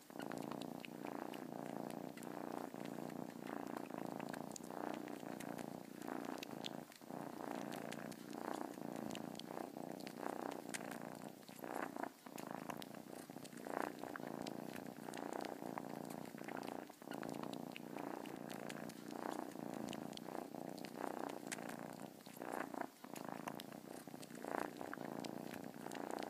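Domestic cat purring continuously, with a few brief breaks.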